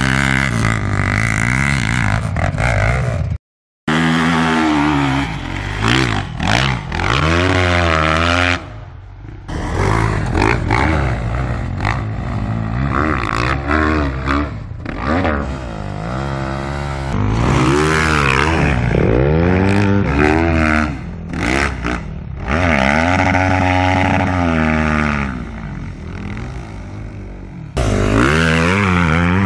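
Four-stroke motocross bike engines, among them a Yamaha YZF, revving hard, their pitch repeatedly climbing and falling as the throttle is worked on sand-hill climbs. The sound cuts out completely for a moment about three and a half seconds in and shifts between several short clips.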